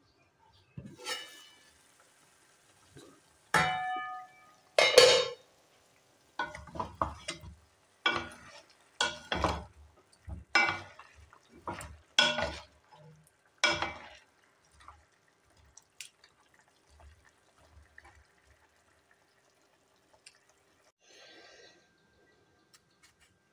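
Metal pan lid knocking and ringing as it is handled, then a spatula knocking and scraping against an aluminium pan about once a second as chicken pieces are turned in hot oil. Only faint small clicks toward the end.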